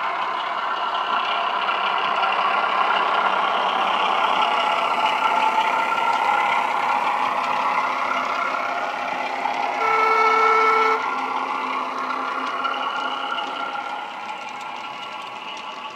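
Digitally generated Class 08 diesel shunter engine sound from a DCC sound decoder, played through the small speaker inside a Bachmann OO-gauge model, running as the loco hauls wagons past. It grows louder through the first few seconds, gives a horn blast of about a second around ten seconds in, then eases off.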